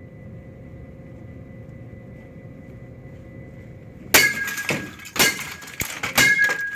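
A faint steady hum, then from about four seconds in a run of hard, loud blows with cracking and breaking, like an office printer being smashed.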